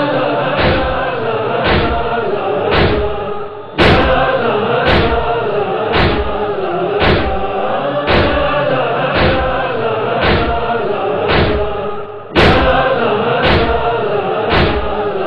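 Mourners chanting a Shia noha together, with a heavy thump about once a second keeping time with the chant. Twice the chant dips briefly and comes back in on an especially loud thump.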